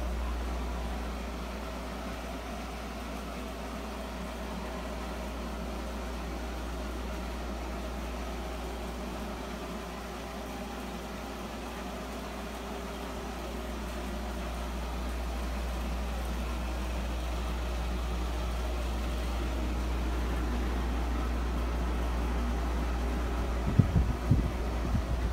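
A steady machine hum with a deep low rumble, its level swelling and easing slowly; a few short knocks near the end.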